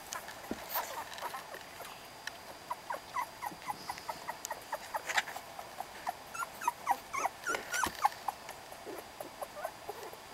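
Young beagle puppies whimpering and squeaking: many short, high-pitched whines, several a second, thickest through the middle, with a couple of sharp clicks among them.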